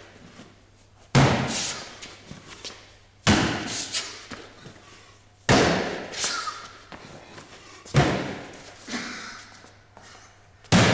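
Heavy throw bags hitting the ground one after another: five hard thuds about two seconds apart, each echoing off the walls of a large metal shed.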